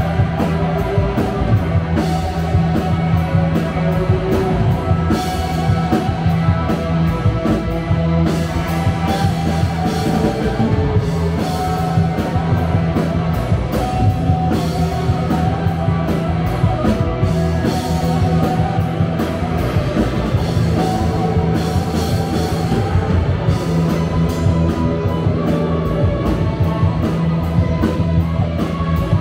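Live rock band playing an instrumental passage: a Telecaster-style electric guitar over bass guitar, drum kit and keyboards, with a steady beat.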